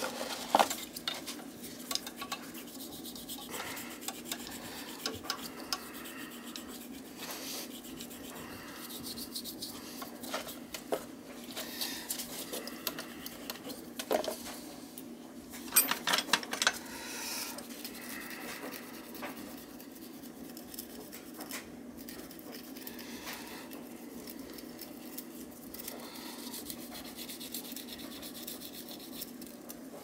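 Metal hand tools clinking and scraping against an oil burner's nozzle and electrode assembly in a metal drip pan as it is worked on for a nozzle change, in irregular bursts with a few sharper clanks about 11, 14 and 16 seconds in, over a steady low hum.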